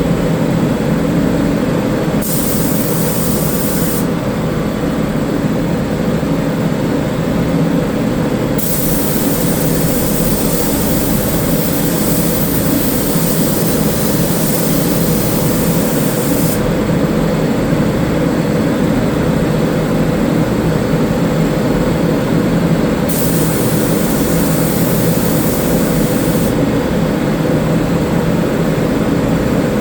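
Paint spray gun hissing in three passes of a few seconds each as sealer primer is sprayed, over a steady machine drone.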